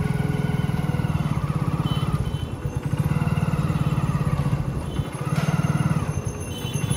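Motorcycle engine idling steadily, its evenly spaced firing pulses carrying through, with a brief swell in level about five seconds in.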